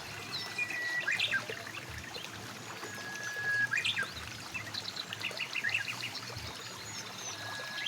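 Shallow river water flowing steadily, with a bird singing over it: three times, a held whistle ending in a quick flourish of notes, and a run of short chirps in between.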